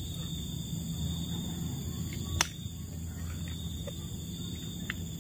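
Steady high-pitched insect chorus over a low background rumble, with a single sharp click about two and a half seconds in.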